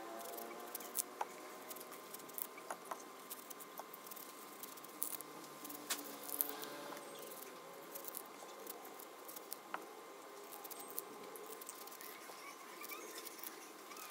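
Knife working on fresh pears by hand: scattered light taps and small scrapes, irregular and fairly quiet.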